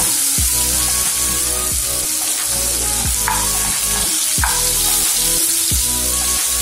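Sliced red onion sizzling in hot olive oil in a frying pan, stirred with a wooden spoon. Background music with a regular beat plays underneath.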